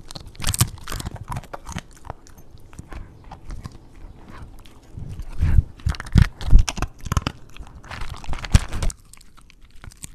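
Borzoi crunching and chewing a hard, brittle piece of food right against a microphone: irregular, loud crunches, loudest about halfway through, with quieter chewing after about nine seconds.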